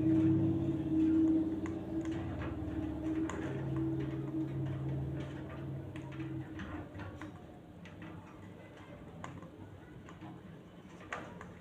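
Irregular light clicks and ticks, over a low steady hum that fades away over the first six seconds.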